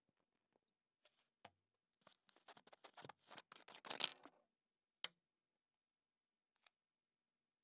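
Faint clicks and crackles of a plastic water bottle and its screw cap being handled: a quick, uneven run of small clicks ending in the loudest one about four seconds in, then a single sharp click a second later.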